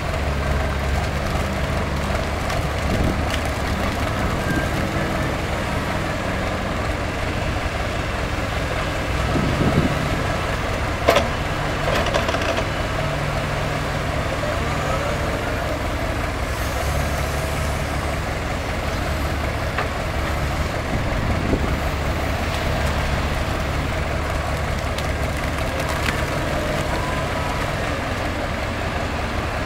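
Wheeled excavator's diesel engine working under load as it digs sludge and swings to load a tipper trailer, the engine note swelling and easing with the hydraulic work. A sharp knock about eleven seconds in.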